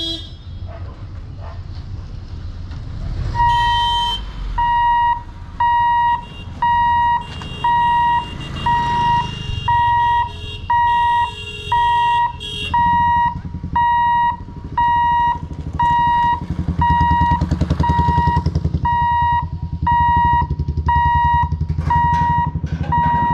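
Level-crossing warning buzzer beeping steadily, about one and a quarter beeps a second, starting a few seconds in as the boom barriers come down. A low engine rumble underneath grows louder in the second half.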